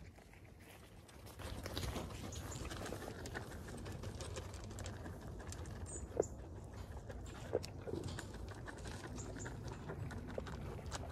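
Outdoor rustling with scattered small clicks and a few faint high bird chirps, plus two brief sharp sounds about six and seven and a half seconds in.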